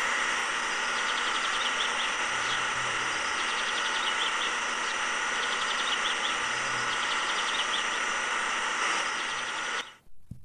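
Small electric motor pump of a homemade toy petrol pump running steadily with a whine of several steady tones over a hiss, delivering fluid through the nozzle into the toy tractor's tank; it cuts off near the end. Faint bird chirps repeat in the background.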